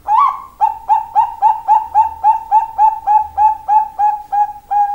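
Bangkok-line zebra dove (perkutut) cooing: an opening note, then a quick, even run of about fifteen short coos, roughly three and a half a second, ending on a longer held note.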